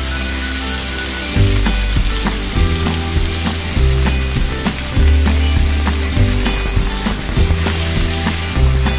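Cubes of salmon sizzling in hot oil in a wok as they start to fry. Near the end a spatula scrapes and stirs them.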